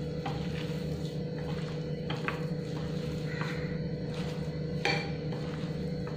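Hand mixing and squeezing a soft mash of soaked poha and boiled potato in a glass dish, with a few sharp clicks of bangles and rings knocking the glass, the loudest about five seconds in. A steady low hum runs underneath.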